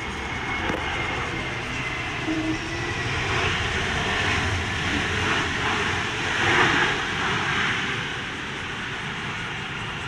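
Jet airliner's engine noise as it rolls out on the runway after touchdown, swelling to its loudest about six to seven seconds in and then easing, over a steady rumble of strong typhoon wind on the microphone.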